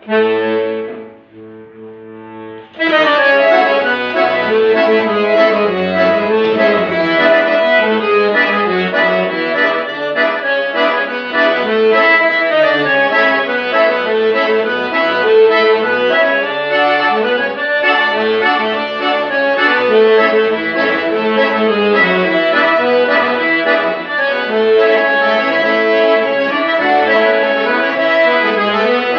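Accordion playing chords with bass runs (baixaria). A softer held chord dies away first, and full playing starts about three seconds in and carries on steadily.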